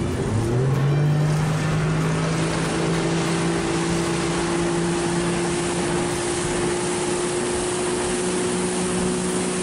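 Small boat's motor running at speed: it climbs in pitch over the first second as it throttles up, then holds a steady drone, under a loud rush of wind and water.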